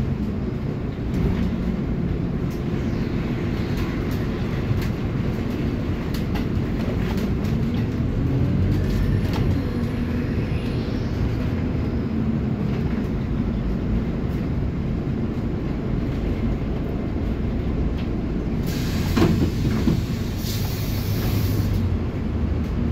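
Scania city bus heard from inside the cabin while under way: the engine runs steadily under the road and body noise, its pitch rising and falling. A brief hiss comes about three seconds before the end.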